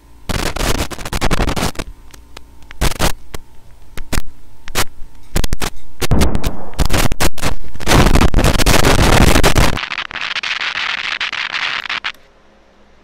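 Loud distorted noise full of sharp cracks and bangs, then about two seconds of steady static hiss that cuts off suddenly.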